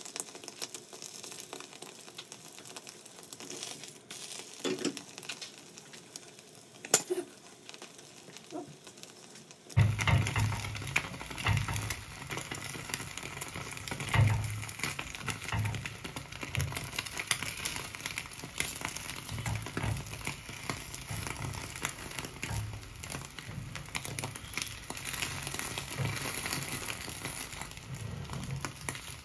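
Beaten egg and a bread slice frying in a nonstick pan: a steady sizzle and crackle, with a sharp click or two from the spatula in the first half. About ten seconds in the sizzle turns suddenly louder, with irregular low bumps running under it.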